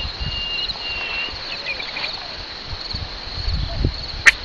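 Crickets chirping steadily in grass, a fine high pulsing trill throughout, with a thin whistle-like tone in the first second. Two sharp clicks near the end are the loudest sounds.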